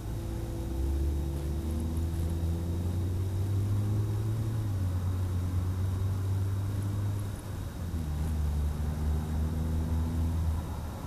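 Mazda CX-5's 2.0-litre four-cylinder engine with a Corksport aftermarket exhaust and short ram intake, running with a steady low exhaust drone. The drone briefly drops away about two-thirds of the way through, then picks up again.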